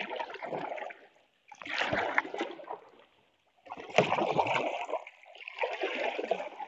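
Paddle strokes splashing in pond water as a small homemade boat is paddled: four strokes, about one every two seconds.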